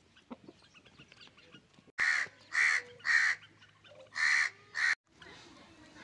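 A chicken calling loudly five times in short calls, a group of three about two seconds in and then two more, which stop abruptly.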